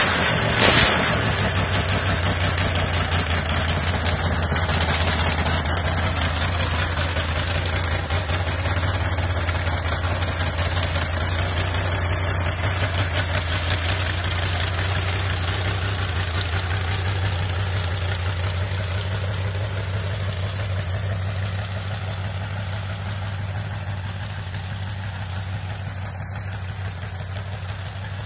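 388 small-block Chevy V8 with open stack headers running in an old Bolens garden tractor, just after starting; a brief rise in engine sound about a second in, then a steady run that slowly fades as the tractor drives away.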